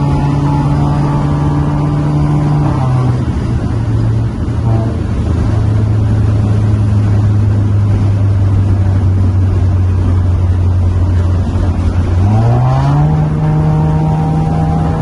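Volkswagen Golf TSI's tuned turbocharged four-cylinder with a sport exhaust, running at steady revs while driving. Its pitch drops about three seconds in, holds low for most of the stretch, then climbs quickly near the end and settles at a higher steady note.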